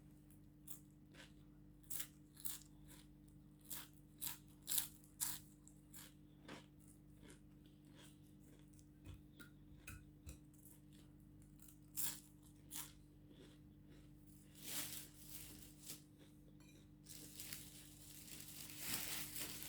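Crispy rugag flatbread being bitten and chewed: a run of sharp, irregular crunches, then longer crackling stretches near the end.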